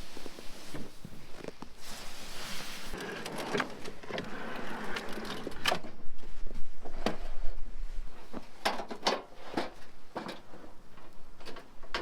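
Knocks, clunks and scraping as the truck cabin is opened up and its slide-out kitchen is pulled out, with a longer rushing scrape about two seconds in.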